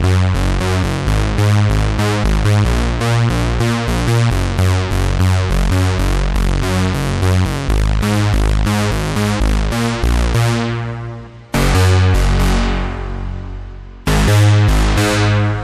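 GForce OB-EZ software synthesizer, an emulation of the Oberheim 8-Voice, playing a fat bass preset as a fast repeating sequenced pattern of about four notes a second with deep low end. About ten seconds in the sound loses its brightness and dies down, then two long held notes sound and fade.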